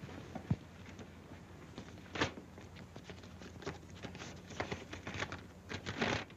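Paper rustling and small clicks as a telegram is handled and unfolded, with a dull knock about half a second in and a sharp click a little after two seconds, over the steady hum and hiss of an old film soundtrack.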